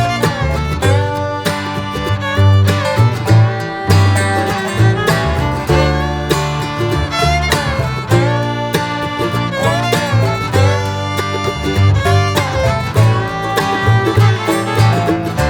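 Background music: an upbeat bluegrass-country tune with guitar and fiddle.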